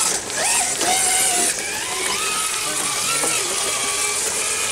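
Electric motor and gear drivetrain of an RC rock crawler whining as the truck crawls over rocks, the pitch stepping up and down with the throttle.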